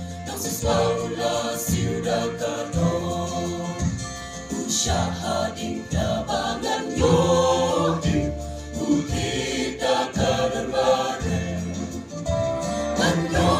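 A mostly female church choir singing a hymn together, in phrases with short breaks between them.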